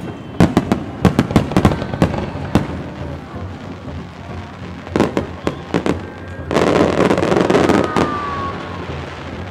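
Aerial fireworks going off: a rapid string of sharp bangs in the first two and a half seconds, a few more about five seconds in, then a dense crackle lasting about a second from a crackling burst near the end.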